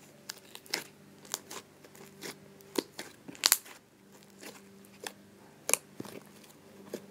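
Homemade white glue slime being squeezed and poked by hand, giving irregular sticky pops and clicks, the loudest a little past halfway. A faint steady low hum runs underneath.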